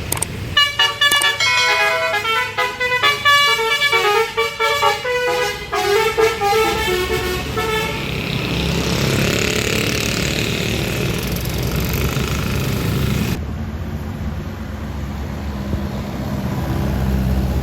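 Tour bus's basuri horn, a set of musical air horns, playing a quick tune of short stepping notes for several seconds. This is followed by the rushing engine and tyre noise of a large bus going by.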